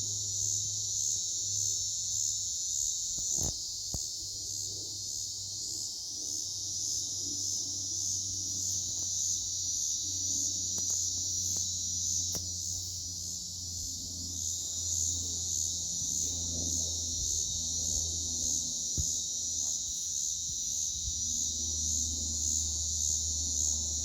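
Night chorus of insects: a steady, high-pitched buzzing trill that holds level throughout. A faint low hum runs underneath, with a few soft clicks.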